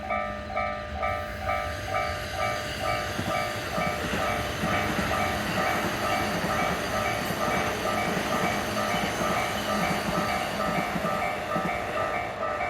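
Japanese level-crossing warning bell dinging steadily, about three dings a second, while a train passes through the crossing. The train's rumble and wheel noise builds a second or two in, is loudest in the middle, and eases near the end.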